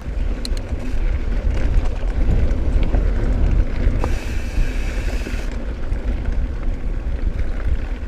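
Wind buffeting the microphone and rumble of a mountain bike rolling over a dirt trail. A brief higher buzz lasts a second or so about halfway through.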